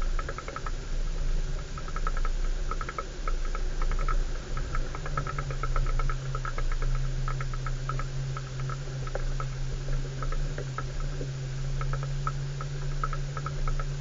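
A 4x4 vehicle's engine running with a steady low hum under a dense patter of light rattling clicks; the engine hum grows louder about five seconds in.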